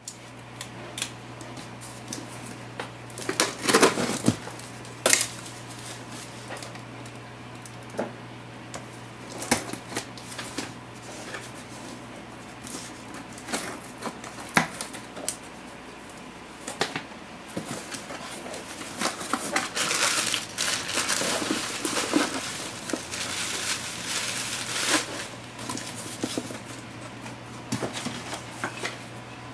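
Cardboard shipping box being opened by hand: scissors cutting packing tape and the box flaps and packing being handled, giving many sharp clicks and knocks with a longer stretch of rustling and tearing in the second half. A steady low hum runs underneath.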